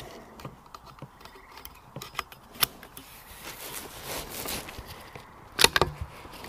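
Handling sounds of a Savage Mark II bolt-action .22 rifle being readied to shoot: small scattered clicks as the magazine is fitted, then a quick cluster of loud metallic clacks about five and a half seconds in.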